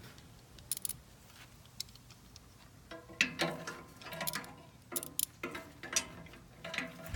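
Irregular metallic clicks and clinks of metal parts and hand tools being handled, sparse for the first few seconds and then coming thick and fast from about halfway through.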